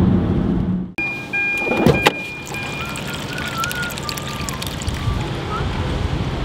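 A car engine running steadily, cut off sharply about a second in. After it comes a quieter background with a short, steady high beep, a couple of sharp knocks around two seconds in, and a wavering high tone.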